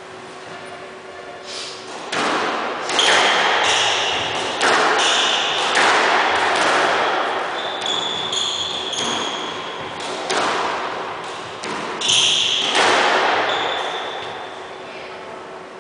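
A squash rally: the ball is struck by rackets and smacks off the court walls, each hit echoing around the court, with short high squeaks in between. The play starts about two seconds in and dies away near the end.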